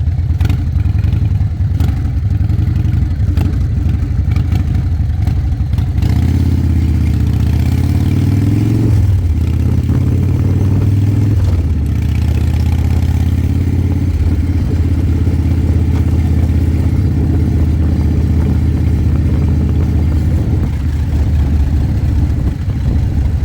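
Vehicle engine running under way. About six seconds in it revs up and shifts twice, the pitch climbing and then dropping each time, before settling into a steady cruise.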